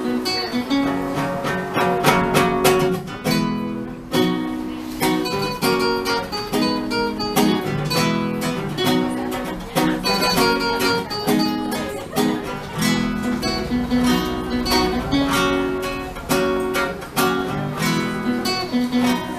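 Guitar music: acoustic guitar strummed and plucked in a steady rhythm.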